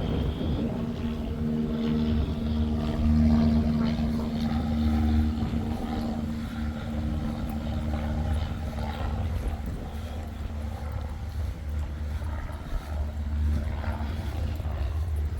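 A distant engine drones steadily and fades after about seven seconds, over a low, uneven rumble.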